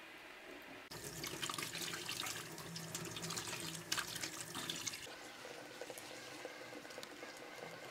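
Water from a garden hose runs into a stainless steel sink and splashes over a vegetable that is being rubbed clean by hand. It starts about a second in and drops to a quieter steady hiss after about five seconds.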